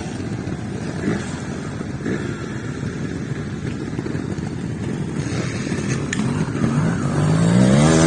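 Trials motorcycle engines running at low revs, then near the end one bike close by revs up, its pitch rising as it gets louder.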